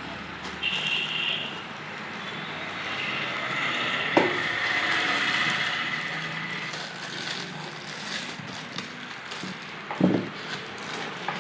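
Clear plastic wrapping crinkling and rustling as an electric iron in its plastic bag is pulled from its cardboard box and handled, with two sharp knocks, one about four seconds in and one near the end.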